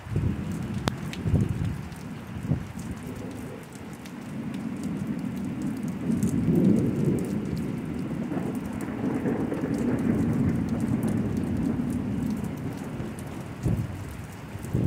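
Thunderstorm: steady rain with drops ticking close by, and a long rolling rumble of thunder that swells from about four seconds in and dies down near the end.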